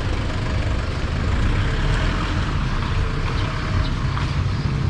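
Motor vehicle engine running close by, a steady low rumble as it passes slowly.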